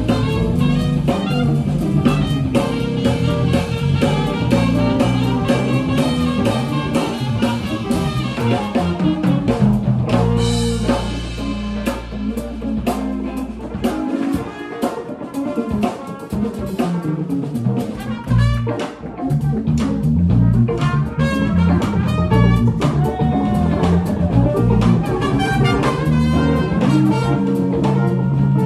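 A small jazz band playing live, with drum kit and guitar. About ten seconds in, a cymbal crash rings over a long held low note, then the band thins out briefly before building back up.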